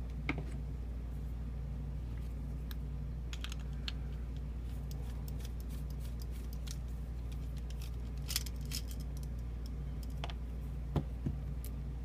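Small metal clicks and clinks of a padlock being handled, set down and its shackle worked, with a few sharper clicks in the second half. A steady low hum runs underneath.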